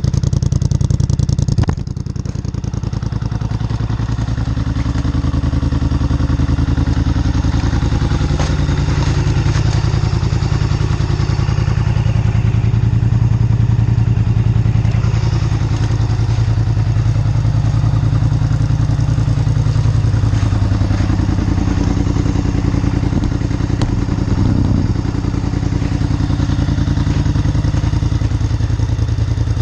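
Polaris Scrambler 850 ATV's parallel-twin engine running through a Big Gun full exhaust, mostly idling steadily. The loudness drops a little about two seconds in, and the engine note dips and rises slightly around the middle.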